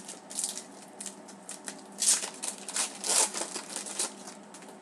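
Trading cards being slid and flipped through by hand: a string of short card-stock rustles, the loudest two about two and three seconds in.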